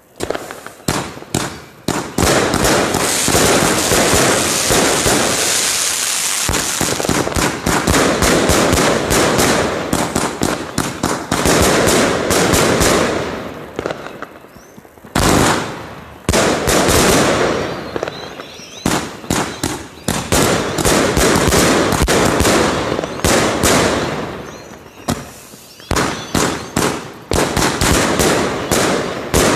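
A Katan Event Box 228-shot firework cake firing: rapid volleys of launch shots and bursts in quick succession, with two brief lulls, about halfway and near the end, before the firing picks up again.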